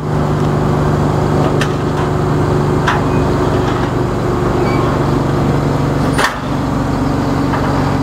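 Heavy diesel truck engine idling, a steady low hum with an even, unchanging pitch.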